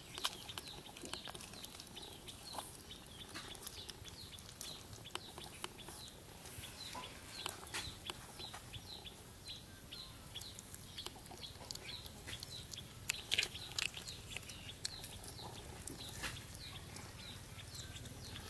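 A steady stream of short, high-pitched peeping calls from young animals, two or three a second, with light clicks scattered through and a louder burst of calls about thirteen seconds in.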